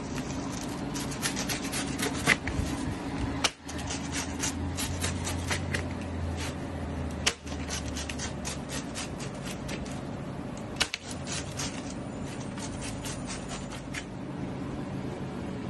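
Knife cutting down through a crisp-baked pizza crust on a metal pizza pan: a run of sharp crackling crunches and scrapes over a steady low kitchen hum. The sound drops out briefly three times.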